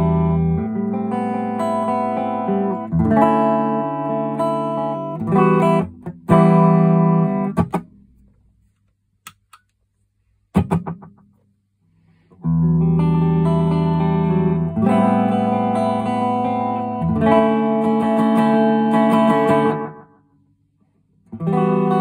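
Electric guitar played through a Vox AC30 amp in phrases of held chords, falling silent for a few seconds in the middle and again briefly near the end. The first part is the dry guitar with the MXR Carbon Copy analog delay bypassed; after the middle pause the delay is switched on.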